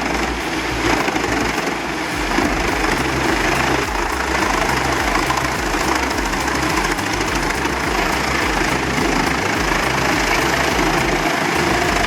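Large diesel-powered mobile wood grinder running steadily under load: a loud, continuous mechanical noise of engine and shredding wood, with a low pulsing underneath.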